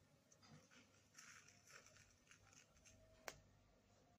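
Near silence, with faint scattered ticks and rustles and a single sharp click a little over three seconds in.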